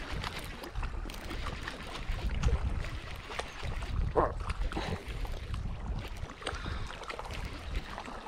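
Baitcasting reel being cranked to bring in a hooked striped bass: handle and gear clicks and handling rubs over a low wind rumble on the microphone, with a short pitched sound about four seconds in.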